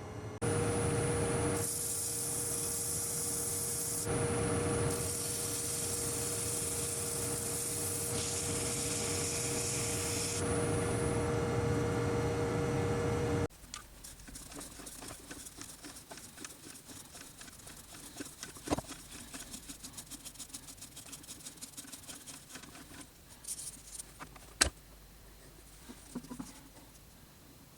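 A motor-driven machine running with a steady hum, with a hiss that comes and goes twice. It cuts off abruptly about halfway through, leaving quieter, rapid light scraping and rubbing with a few sharp clicks.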